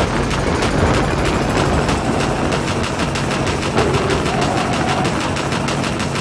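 Royal Enfield Himalayan's single-cylinder engine running hard at highway speed, its exhaust beats coming as a rapid, even rattle that quickens slightly, with wind rushing over the microphone.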